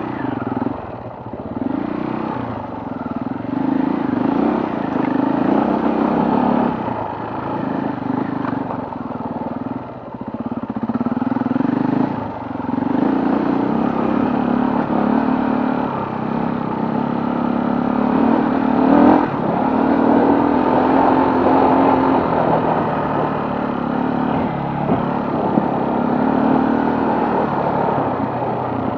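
Off-road motorcycle engine under way on a forest trail, revving up and down with the throttle, with brief drops in pitch and loudness each time the throttle closes.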